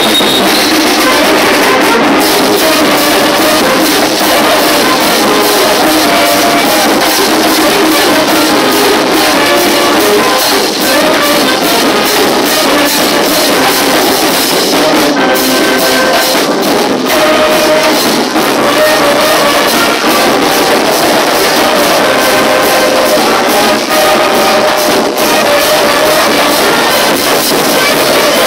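Charanga, a Spanish street band of saxophones and brass, playing a lively tune loudly over a steady beat.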